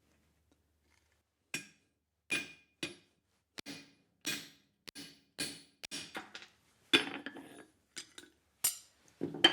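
Hammer blows on steel: about fifteen sharp metallic strikes, irregularly spaced, each with a short ring.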